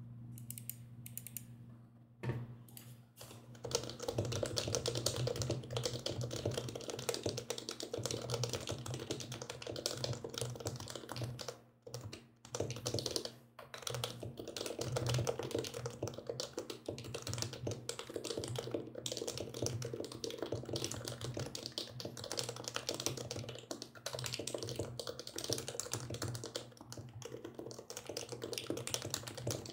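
Fast typing on a compact mechanical keyboard: a dense run of key clacks that starts a few seconds in and goes on with two short pauses near the middle, over a steady low hum.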